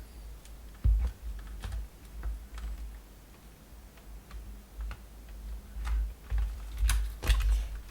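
Fan housing parts clicking and knocking as they are handled and tried in place during reassembly, with a cluster of louder clicks near the end.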